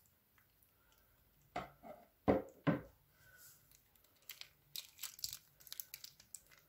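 Clear plastic piping bag crinkling as hands squeeze and work it: a few sharp crackling bursts about two seconds in, then a run of small crackles.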